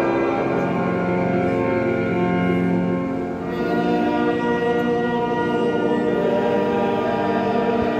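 Church organ playing long sustained chords, moving to a new chord after a brief dip about three and a half seconds in.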